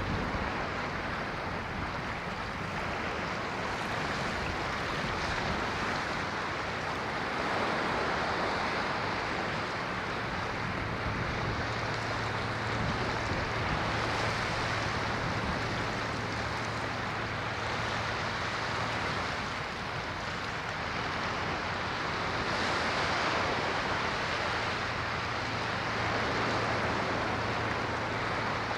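Ocean waves washing ashore in a continuous surf that swells and eases every few seconds. A steady low hum runs under it for stretches in the second half.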